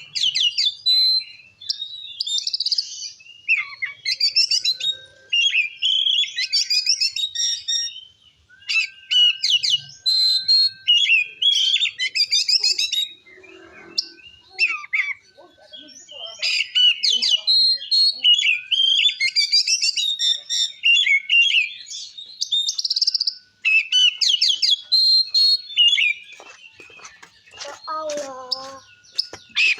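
Oriental magpie-robin (kacer) singing loudly and almost without pause: fast runs of varied whistles, trills and chattering notes, broken by a few short gaps. This is the full, open song Indonesian keepers call "gacor ngeplong", used to provoke other magpie-robins.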